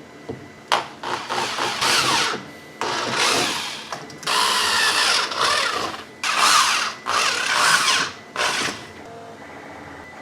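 Power drill boring holes, running in about six short bursts with sharp starts and stops.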